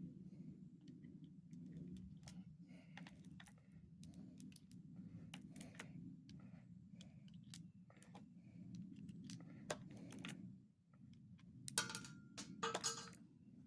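Small metallic clicks and clinks of .38 Special cartridges being handled with a Taurus 856 revolver, scattered throughout, with a louder cluster of clinks near the end.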